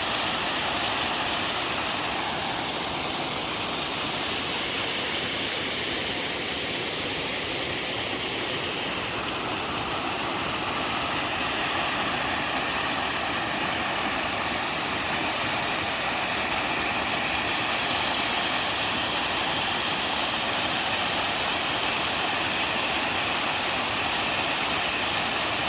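Water pouring over a rock waterfall in a mountain stream: a steady, even rush with no breaks, its sound lying mostly in the middle and high range.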